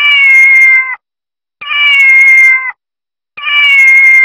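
A cat meowing three times, each meow a long call of about a second, evenly spaced.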